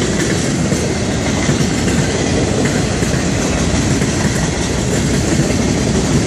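Freight cars of a Florida East Coast Railway train rolling past close by: a loud, steady noise of steel wheels on the rails.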